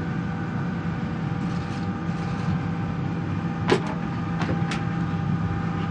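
Steady hum of an aircraft cabin's air conditioning, with several even tones over it. A few short clicks sound a little past the middle.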